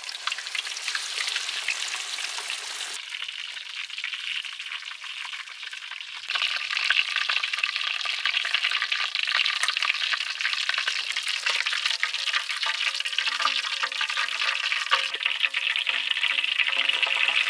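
Hot oil sizzling and crackling steadily as whole fish deep-fry in a wok, louder from about six seconds in.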